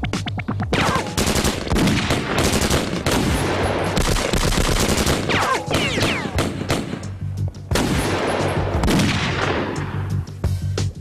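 Sustained automatic gunfire in rapid volleys, with bullet hits and a few falling whines, thinning out near the end.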